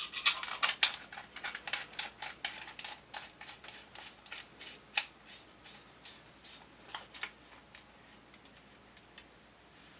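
Small metallic clicks and taps of shotgun parts and a screwdriver being handled while the magazine cap and its screw go back on. The clicks come quickly at first, then thin out to scattered single ticks, with a sharper click about five seconds in.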